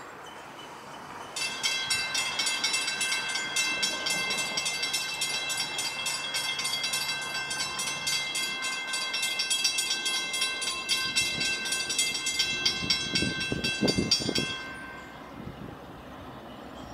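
Railroad grade-crossing bell ringing rapidly and evenly, starting suddenly a second and a half in and cutting off near the end. The approaching passenger train's low rumble rises near the end.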